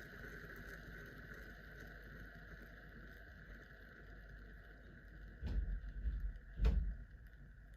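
A hand-spun object whirring steadily and slowly fading as it winds down, with two low thumps about five and a half and nearly seven seconds in.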